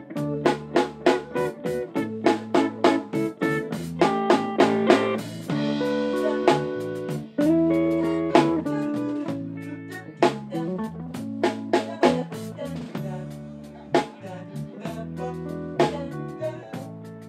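Live band playing an instrumental passage: electric guitar lead over bass guitar and drum kit. The guitar holds long notes with a bent note in the middle, over a steady drum beat.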